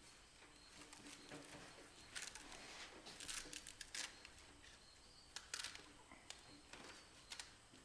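Faint, brief rasps and crackles of hands handling material, several in quick succession a couple of seconds in and a few more later.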